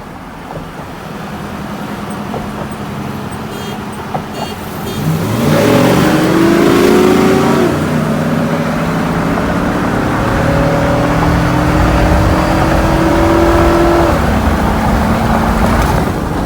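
Pickup truck engine accelerating hard at full throttle. The engine pitch climbs, drops at an upshift about eight seconds in, then climbs again until it eases off near the end.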